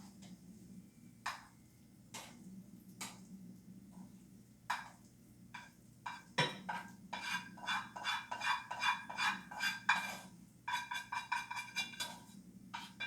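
Dishes and utensils being handled: scattered taps and clicks, then from about halfway a quick run of ringing clinks of metal on a dish, over a faint steady low hum.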